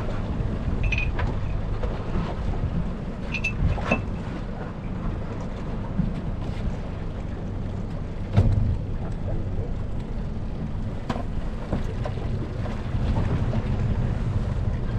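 Small boat's outboard motor running steadily at low speed, with wind noise on the microphone. A few light clicks of fishing gear being handled on deck, and one louder knock about eight seconds in.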